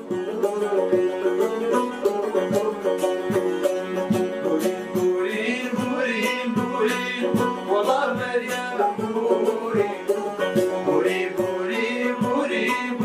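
A long-necked banjo and a Kurdish saz (bağlama) plucked together in a steady rhythm, playing a Kurdish folk tune. Male singing joins about five seconds in.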